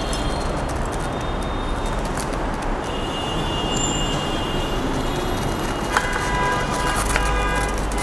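Steady background noise, with several faint held tones joining about six seconds in.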